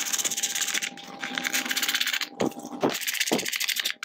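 Ratchet tool driving in the screws of a plastic upper timing-belt cover: quick, even clicking in two runs, broken around the middle by a few knocks.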